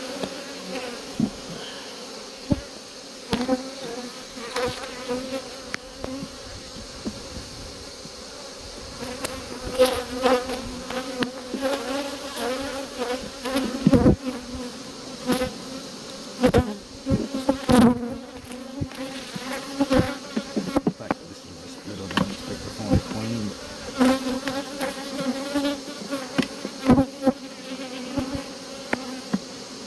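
Honeybees buzzing around an opened hive: a steady, low hum. Frequent short knocks and clicks sound over it.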